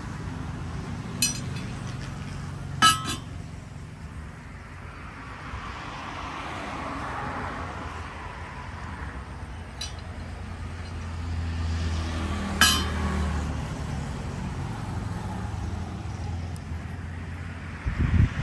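Metal striking metal: four sharp clinks spaced seconds apart, the loudest two ringing briefly, over a steady low rumble that swells for a few seconds around the middle.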